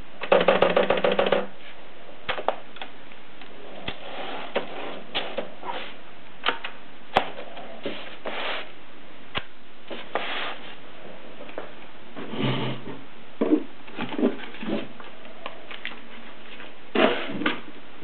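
Mercedes Selecta portable typewriter's mechanism being worked by hand: a quick run of about nine clicks just after the start, then scattered single clicks and short clusters of clacks.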